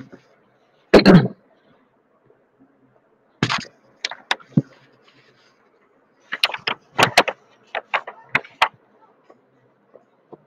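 Computer mouse and keyboard clicks picked up by a desk microphone: scattered sharp clicks, bunching into a quick run of a dozen or so clicks in the second half, with one short louder burst about a second in.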